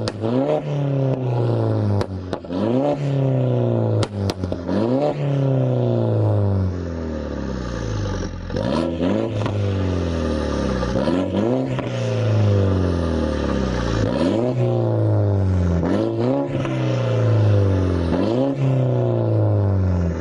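Straight-piped, catless exhaust of a 2015 F56 Mini Cooper S's turbocharged four-cylinder engine, revved again and again. Each rev climbs quickly and then winds back down. Sharp pops and cracks come from the exhaust during the first few seconds.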